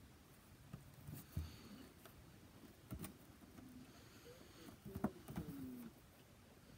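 Clear plastic display box with a glass goblet inside being handled and turned over: faint plastic creaks and handling noise, a few sharp taps or clicks, and short squeaks of skin on plastic a little after the middle.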